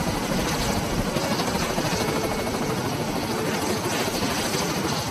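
V-22 Osprey tiltrotor running on the ground with its proprotors turning: a steady rush of rotor and turboshaft engine noise.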